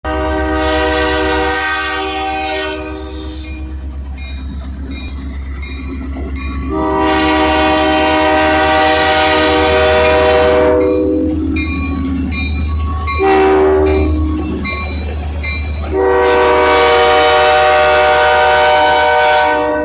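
Diesel locomotive's air horn sounding the grade-crossing signal as the train passes: two long blasts, a short one, then a final long one. Between the blasts come the evenly spaced clicks of train wheels over rail joints.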